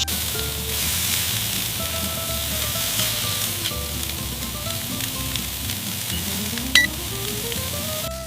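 Food sizzling on a hot cooking surface, a dense steady hiss that cuts off abruptly near the end, with a single sharp tap just before. Background music plays over it.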